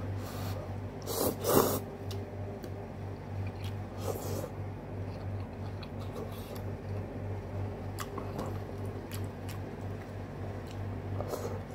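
A person slurping a mouthful of noodles off chopsticks, loudest about a second and a half in, then chewing, with small clicks of chopsticks against the bowl.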